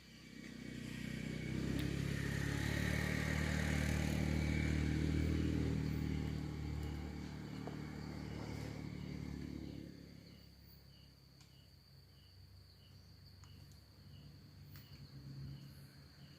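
A vehicle driving past on the road: its engine grows louder over the first couple of seconds, stays at its loudest for a few seconds, then fades away by about ten seconds in. Crickets chirp in a steady, even rhythm behind it.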